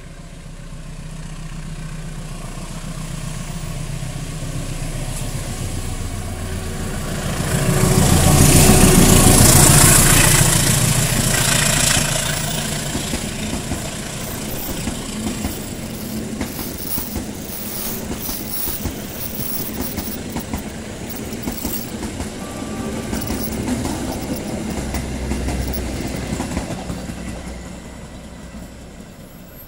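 CC201 diesel-electric locomotive hauling a passenger train at speed. The sound builds as it approaches, is loudest for a few seconds about eight to twelve seconds in as the locomotive goes by, then the coaches' wheels clatter rapidly over the rail joints before fading as the train moves away.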